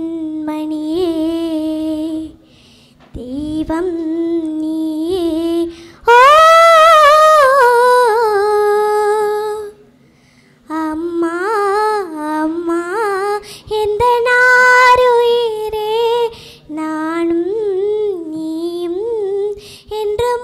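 A young girl singing a Tamil song unaccompanied into a microphone, in long held phrases with short breaths between them. Her loudest, highest note comes about six seconds in.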